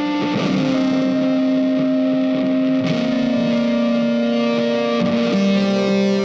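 Background music led by distorted guitar, sustained chords changing about every two and a half seconds.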